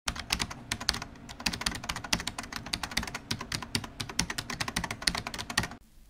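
Rapid typing on a keyboard: a fast, irregular run of sharp clicks that stops abruptly just before the end.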